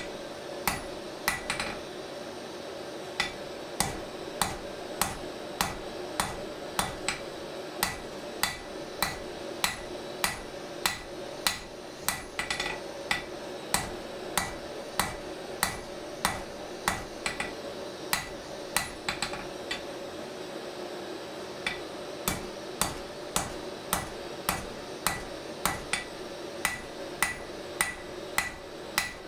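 Hand hammer striking red-hot steel on an anvil while forging a drawknife blade: a steady run of blows, about two a second, each with a short metallic ring, over a steady hum.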